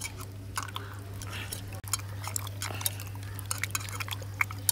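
A hand squeezing tamarind pulp in water in a steel bowl: wet squelching and sloshing with many small metallic clicks and clinks against the bowl. A steady low hum runs underneath.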